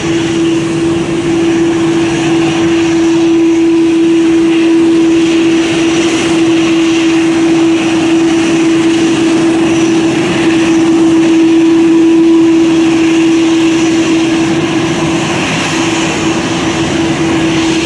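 Steady jet airliner engine noise at idle: a constant drone with one steady tone over a broad hiss, holding level throughout.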